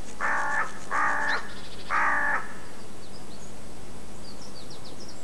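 A crow cawing three times, harsh calls about a second apart. Faint, short, high chirps of small birds follow in the second half.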